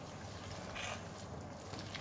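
Thick, wet bread batter being stirred in a glass bowl, with a soft, wet sloshing of the mixture against the glass.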